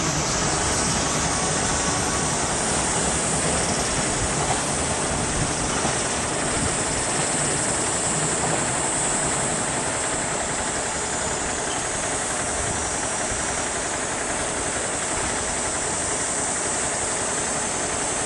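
Freight train running on the rails as it moves off into the distance: a steady rumbling noise with a high hiss over it, easing off slightly after about ten seconds.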